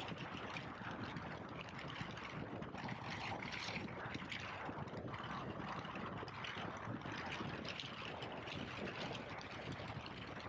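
KTM 1290 Super Adventure S motorcycle underway: a steady rush of wind and road noise over the microphone, with the engine running beneath it.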